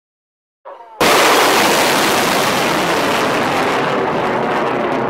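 Nike Hercules missile launching: its solid-fuel booster ignites with a sudden loud blast about a second in, followed by a sustained rush of noise that slowly fades.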